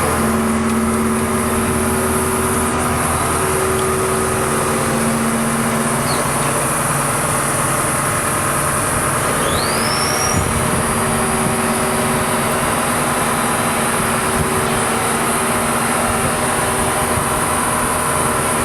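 Engine of a work lift running steadily as it carries the platform up. A short rising squeak comes about ten seconds in.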